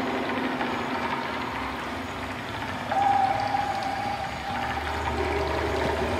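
Steady road and engine noise inside a moving car, with a held tone for a second or so about halfway through and a low hum growing near the end.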